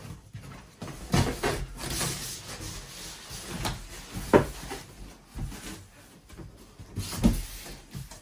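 Packaging and parts of a computer chair being handled in its cardboard box: a series of knocks and thumps with rustling between them, the loudest about four seconds in.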